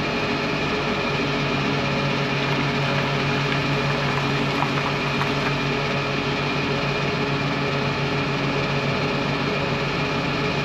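Petrol station fuel dispenser running while a car is refuelled: a steady mechanical hum from the pump with fixed tones, unbroken throughout.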